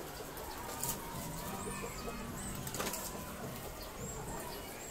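Birds giving a few short, high chirps over a steady background hiss, with two sharp clicks, about one and three seconds in.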